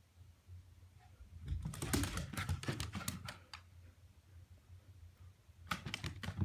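Dog's claws clicking rapidly on a hardwood floor as the dog moves across it, in two flurries: one about a second and a half in, and another near the end.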